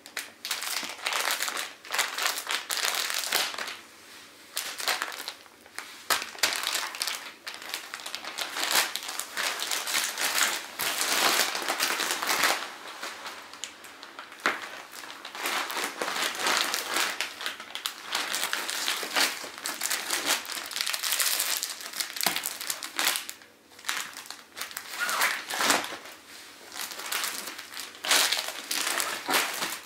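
Plastic zip-top compression bag crinkling and rustling in irregular bursts as it is zipped shut and pressed down by hand to push the air out through its bottom vent, squashing the sleeping bag inside.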